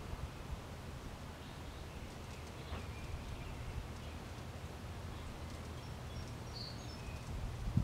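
Outdoor background: a steady low rumble with a few faint, short bird chirps scattered through it.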